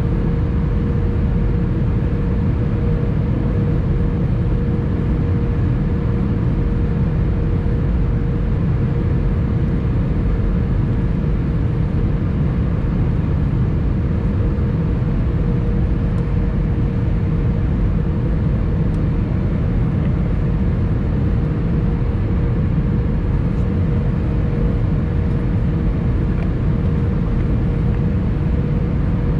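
Cabin noise of an Airbus A320-214 on final approach, configured for landing. A steady low rush of its CFM56 engines and airflow, with a constant mid-pitched hum over it.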